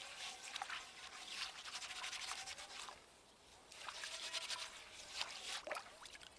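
Repeated rubbing, scraping strokes, with a short pause about three seconds in.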